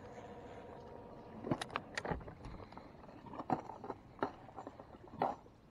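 A steady mechanical whir that stops about a second and a half in, then scattered light clicks and knocks as a baitcasting rod and reel are handled.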